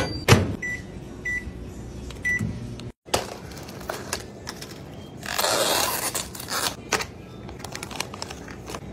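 A thump and then three short, high beeps from a microwave oven's keypad as it is set to heat a cup of instant ramyun. After a cut, about a second of rustling noise and a few clicks from a plastic drink cup and pouch being handled.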